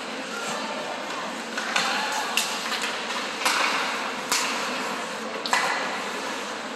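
Ice hockey game sounds: about five sharp clacks from play on the ice, spread over a few seconds, over a steady rink hiss with faint distant voices.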